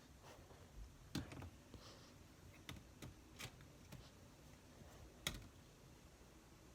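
Faint, irregular clicks and pops of slime being pressed and worked by hand, about seven of them, the sharpest about a second in and another a little after five seconds.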